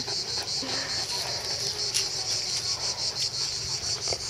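Cicadas singing in a steady, shrill chorus.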